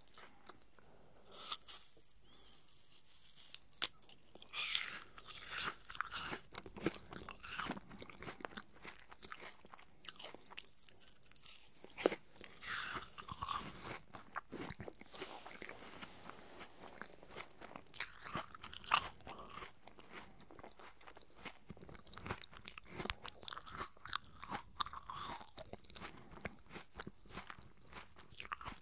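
Juicy apple pieces being chewed close to the microphone: crisp crunches and wet mouth sounds come in irregular bouts, with a few sharper cracks.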